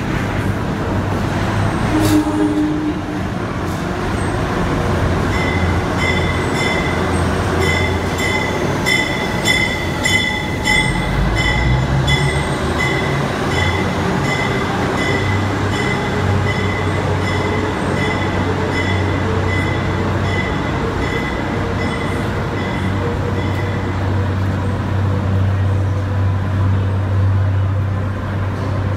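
Subway work train passing through an underground station: flat cars rolling by on steel rails, then the work locomotive coming through with a low engine rumble. A rhythmic high ringing, a few pulses a second, runs through the middle of the passage and stops about five seconds before the end.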